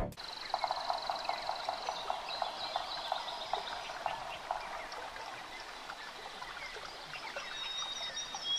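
Forest ambience of many small birds chirping and calling, over a soft background hiss. A fast trill sounds through the first second, and a few clear high whistles come near the end.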